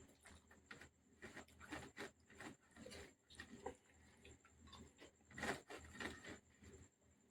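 Faint chewing and mouth sounds of a person eating rice with egg curry: an irregular string of soft, wet clicks and smacks, the loudest about five and a half seconds in.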